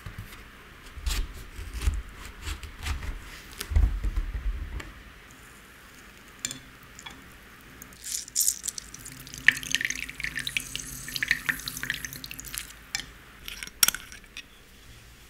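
Food-prep handling sounds: soft knocks and squelches as halved peaches are handled on a plastic cutting board. About eight seconds in, liquid trickles and drips for several seconds as a lemon half is squeezed into a small glass measuring jug. There is a sharp click near the end.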